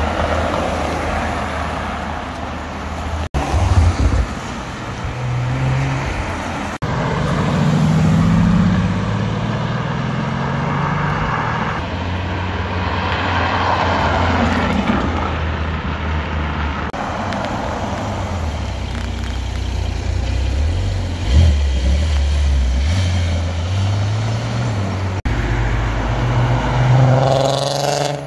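Car engines and exhausts, one car after another, as performance cars drive past on wet tarmac with tyre hiss: a Range Rover Sport SVR's supercharged V8, a Maserati GranTurismo's V8, and near the end a Volkswagen Golf R32's VR6 revving up as it pulls away, its pitch rising quickly. The sound cuts abruptly between cars several times.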